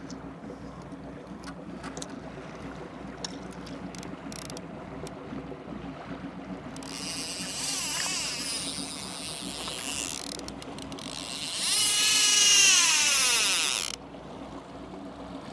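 A fishing reel paying out line as a trolling rod is set: a whirring, clicking spool whose pitch sweeps down and up, loudest in the last few seconds. Under it runs the steady low hum of the trolling boat's engine.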